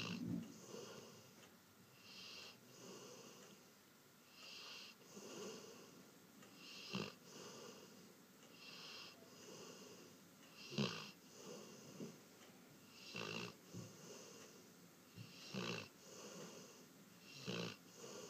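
Snoring in a slow breathing rhythm of about one breath every two seconds, each breath with a high wheezy whistle. Now and then, about every two to three seconds, a louder, sharper breath stands out.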